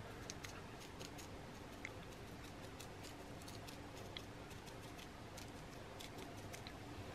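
Faint, irregular light ticks and taps of a stippling brush dabbing acrylic paint onto a textured glass jar, over a faint steady hum.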